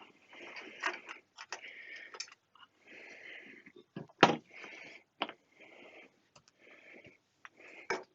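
Handling noise from an HP 5326B frequency counter being worked on upside down: scattered clicks and knocks with short scraping sounds in between, the loudest knock about four seconds in.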